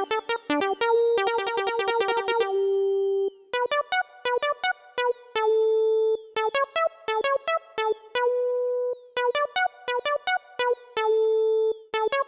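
Solo synthesizer keyboard playing a cumbia villera lead melody: runs of quick, short notes with a held note every few seconds and a brief pause about three seconds in, with no drums or bass.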